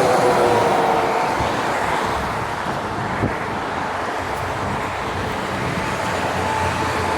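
Road traffic: steady noise of passing motor vehicles with a faint steady engine hum. It eases off a little midway and builds again near the end.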